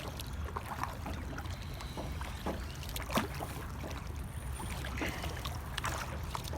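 Kayak paddling: the paddle blades dip and splash, with water dripping off them and an odd knock, over a steady low rumble.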